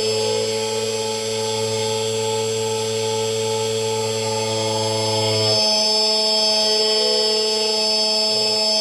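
Xtool Anycut automatic key cutting machine running through a key-cutting job: a steady machine whine made of several held tones. About five and a half seconds in, the low hum drops away and the higher tones shift in pitch.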